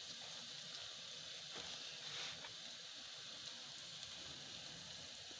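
Batter-coated boiled eggs deep-frying in hot oil in a wok: a faint, steady sizzle with a few soft crackles.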